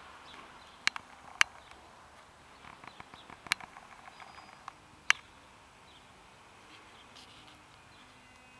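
Several sharp clicks, the loudest about a second and a half in and about five seconds in, with scattered fainter ticks between them, over a faint steady hiss.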